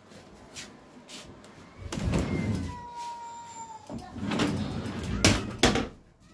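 A sliding door being moved: two long rolling scrapes with a brief steady squeal between them, then two sharp knocks close together near the end.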